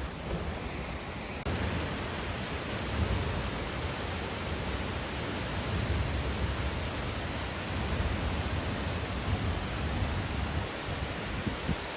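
Water of a very tall single-drop waterfall plunging into its pool: a steady rushing noise, deep and thunder-like, that steps up in level about a second and a half in.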